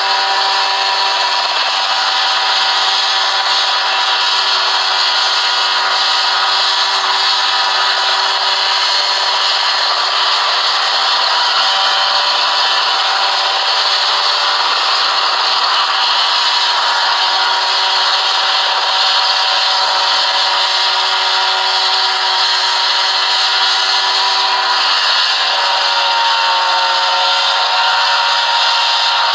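Small single-seat ultralight helicopter hovering low, its engine and rotor giving a loud, steady buzzing drone. The engine pitch shifts a little past the middle and again near the end as power is adjusted.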